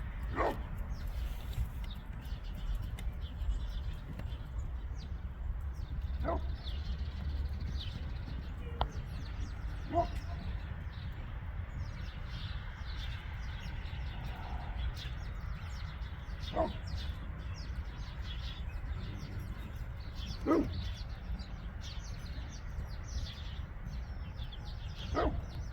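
A dog barking in single barks, about seven of them a few seconds apart, over a steady low rumble, with faint small birds chirping throughout.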